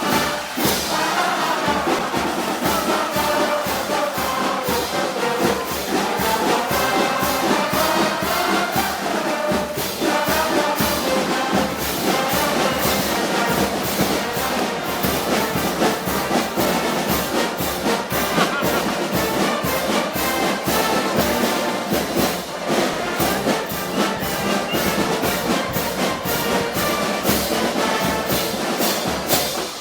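Brass band music, a festival march with brass over a steady drum beat.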